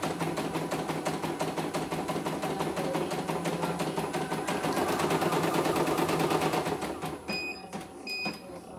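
CNY E900 computerized embroidery machine stitching a design, its needle working at a rapid, steady rate. About seven seconds in the stitching stops and the machine gives two short electronic beeps, its signal that it has halted.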